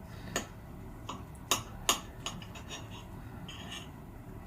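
Knife and fork clicking and tapping against a plate while cutting pancakes and sausage patties. There is a string of light clicks, and the loudest two come about a second and a half and two seconds in.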